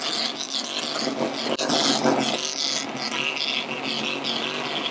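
A busy, steady mix of car engines and a crowd of people, with no single sound standing out.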